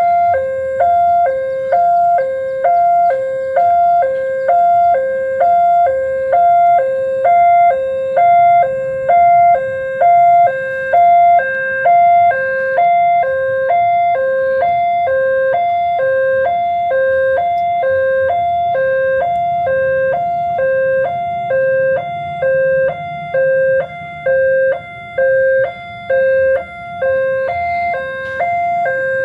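Railway level-crossing warning siren sounding an electronic two-tone alarm: a lower and a higher note alternate steadily, about once a second. It signals that the crossing is closed for an approaching train.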